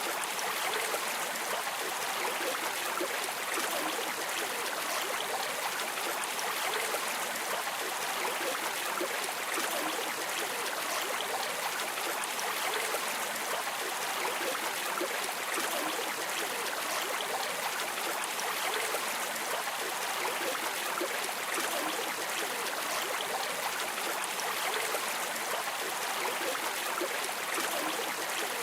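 Flowing river water: a steady, even rush with fine splashing detail and no breaks.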